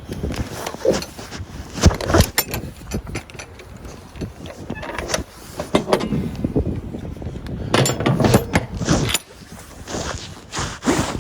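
Irregular knocks and clattering, a run of sharp handling and impact noises with no steady engine tone.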